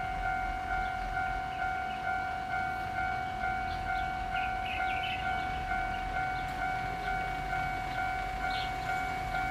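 Railway level-crossing warning bell ringing with rapid, even dings, about two to three a second. It signals that the barriers are down for an approaching train.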